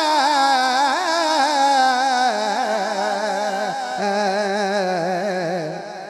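A man singing an Urdu naat unaccompanied into a microphone, holding out a long melismatic note with a wavering vibrato that steps down in pitch about two seconds in and fades near the end.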